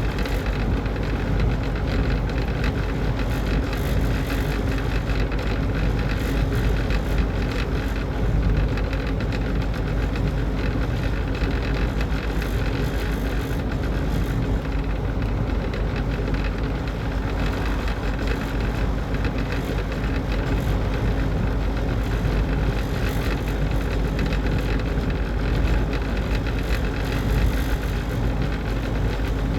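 Exhaust fan running steadily: a constant motor hum over an even rush of air.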